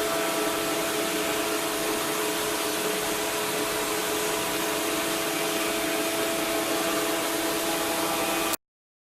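Steady drone of a motor-driven machine, an even hiss with several constant hum tones, which cuts off abruptly near the end.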